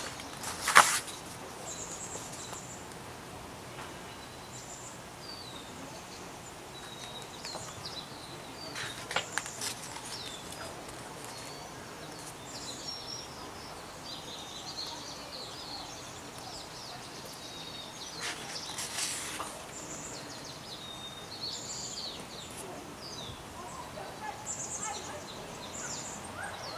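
Small birds chirping and twittering on and off throughout. Picture-book pages are turned three times, about a second in, around nine seconds and around nineteen seconds; the first turn is the loudest.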